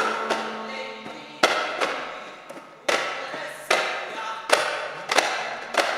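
Daff frame drums struck together by a duff muttu group in unison: about seven sharp beats, roughly one a second, each ringing out before the next.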